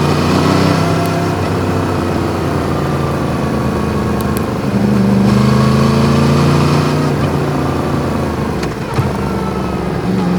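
Yamaha MT-10's crossplane inline-four engine running on the move, its pitch easing down and then climbing again as the throttle is opened, with a couple of brief sharp clicks.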